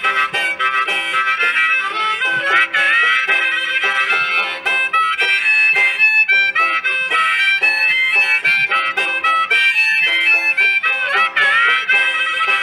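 Two harmonicas and a banjo playing an instrumental tune together, the banjo picked under the reedy harmonica lines. A harmonica note is bent down and back up about two and a half seconds in, and again near the end.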